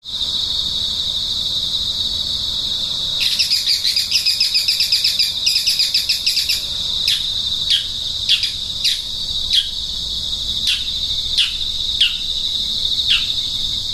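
Nature ambience of a steady, high-pitched insect buzz like crickets or cicadas, with bird calls over it: a rapid trill a few seconds in, then a series of about nine falling whistled notes spaced roughly half a second to a second apart.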